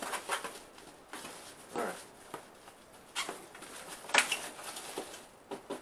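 Cardboard shipping box being handled and its contents rummaged through: scattered soft rustles and scrapes of cardboard flaps and packing, the loudest about four seconds in.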